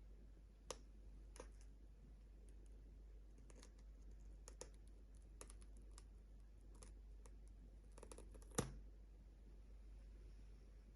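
Faint scattered clicks and taps from hands handling a phone and its packaging during an unboxing, with one sharper tap near the start and a louder one near the end, over a low steady hum.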